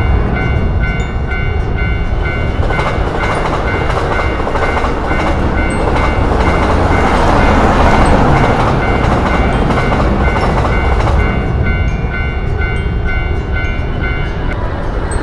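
Japanese railroad crossing bell ringing about twice a second while a train passes. The train's rumble swells in the middle and drowns the bell, and the bell stops near the end.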